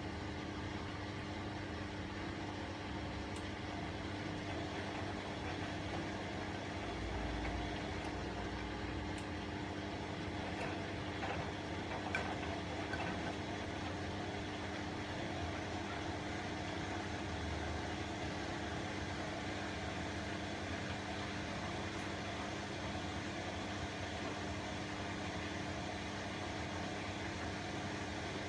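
Bosch WAE24162GB/03 washing machine running on its rinse-and-spin cycle: a steady motor and drum hum with a couple of faint low thuds.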